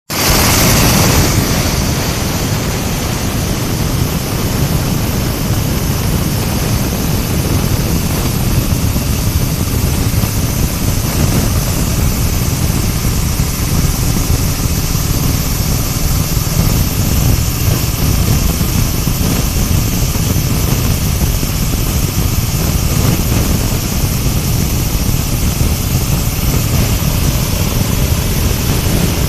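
Multipurpose animal-feed corn grinding machine running with a loud, steady mechanical roar and hiss, a little louder in the first second or so.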